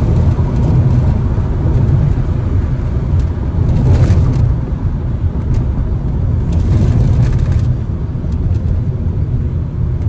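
Turbocharged Volkswagen engine running with an open exhaust cutout on an aftermarket downpipe, heard from inside the cabin as a loud, steady low exhaust drone. Brief hissy swells come about four and seven seconds in, and the drone eases a little near the end.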